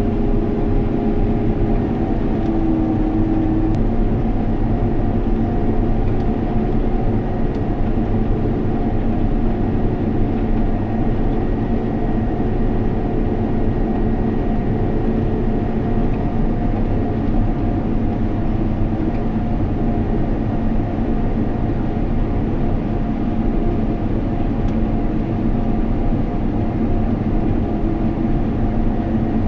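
Combine harvester running steadily, heard from inside the cab: a constant engine drone with a few steady tones over it.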